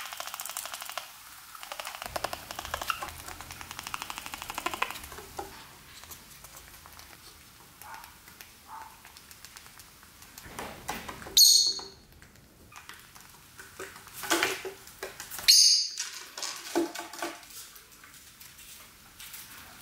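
Male peach-faced lovebird making its courtship noise, a fast rattling chatter in the first few seconds. Softer chatter follows, then a few short, loud, high-pitched chirps about halfway through and again a few seconds later.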